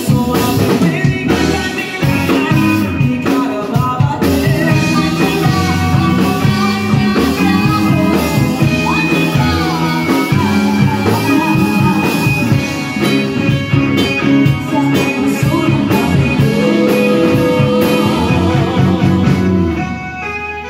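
Live rock band playing: male and female singers over electric guitars, bass guitar and drums. The music drops away and fades near the end.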